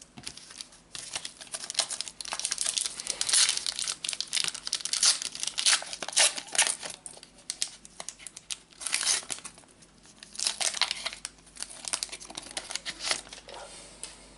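A Panini Adrenalyn XL trading-card packet being torn open and crinkled in the hands: irregular bursts of crackling wrapper rustle, with brief pauses between handfuls.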